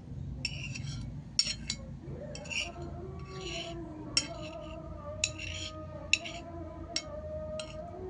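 Cutlery clinking and scraping against a plate of spicy fried rice while eating: short scraping scoops and about six sharp clinks, over faint music.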